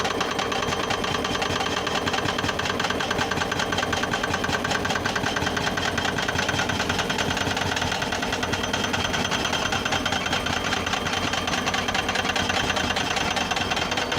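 Excavator's diesel engine running steadily, with a fast even pulsing.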